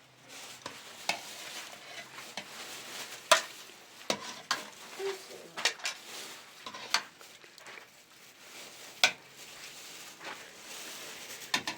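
Meat sizzling in a hot pan or pot, with a steady frying hiss and scattered sharp clicks and knocks of a utensil stirring it against the pan.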